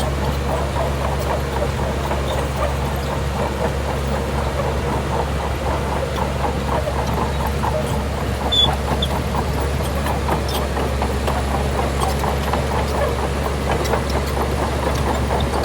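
Shantui bulldozer's diesel engine running steadily under work, with a fast, even metallic clinking of several strokes a second over it, typical of crawler tracks moving.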